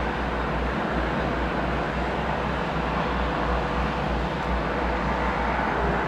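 Steady jet aircraft noise from an Airbus A321 on pushback: a continuous hum and whine with a faint steady tone, over a low rumble that pulses unevenly.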